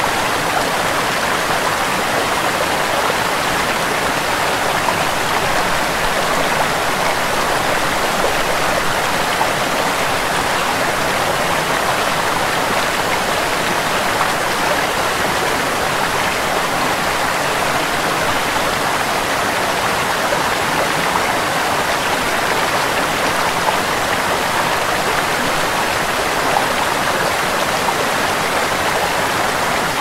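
Small waterfall cascading over stepped rock ledges into a shallow stream: a steady, even rush of water that does not change.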